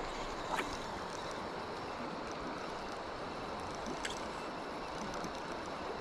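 River water flowing, a steady rushing noise, with a couple of faint clicks about half a second and four seconds in.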